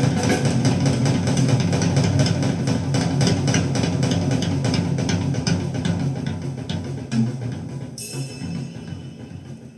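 Jazz recording with a drum kit playing back over Sansui SP-100 loudspeakers driven by a 6A3 tube amplifier; the track fades out near the end.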